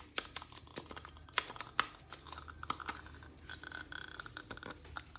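Plastic toy packaging being handled and opened: irregular crinkling, with many small sharp clicks and ticks.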